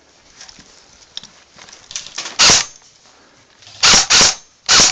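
Airsoft replica rifle firing single shots close to the microphone: one shot about halfway through, a quick pair a second and a half later, and another near the end, each loud enough to distort. Faint rustling of movement comes before the shots.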